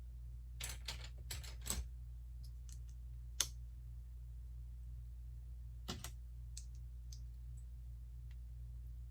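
LEGO plastic bricks clicking and rattling as pieces are handled: a quick cluster of clicks in the first couple of seconds, one sharp click about three and a half seconds in, another around six seconds, then a few faint ticks, over a low steady hum.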